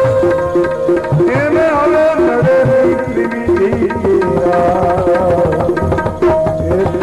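Instrumental passage of a Gujarati devotional bhajan: tabla playing a steady rhythm under a sustained melody instrument.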